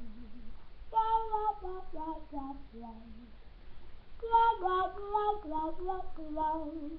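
A woman singing a wordless melody in short phrases, her voice stepping up and down in pitch.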